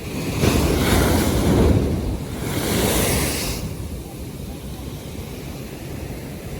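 North Sea waves washing in: two surges of surf in the first half, the first the louder, over a steady wind rumble on the microphone.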